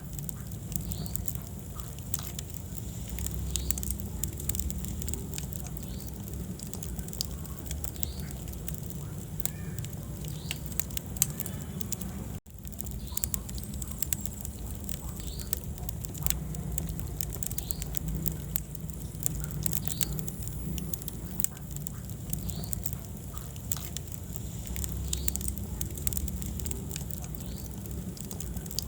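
Wood fire burning in a fireplace: a low rumble of flames with many small crackles and pops scattered throughout. The sound cuts out for an instant about twelve seconds in.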